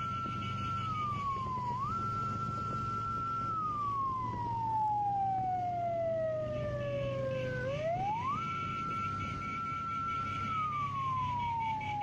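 A siren wailing in one clean tone that holds high, slides slowly down and then sweeps quickly back up, twice, over a steady low rumble from inside the moving car; a rapid high beeping pulses alongside it near the start and again from the middle on.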